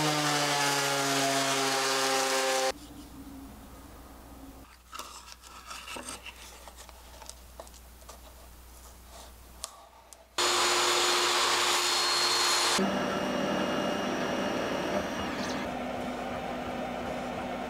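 A benchtop thickness planer runs loudly for the first few seconds, then stops. It is followed by quieter handling, rubbing and small clicks, then a second loud power tool about ten seconds in. It gives way to the steadier running of a laser engraver near the end.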